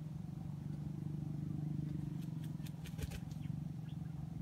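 A steady low motor hum, like an engine idling, with a few faint clicks about two to three seconds in.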